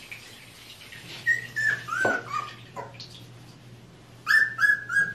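Australian Shepherd puppy whining: a few high, falling whimpers, then near the end a quick run of louder high-pitched cries.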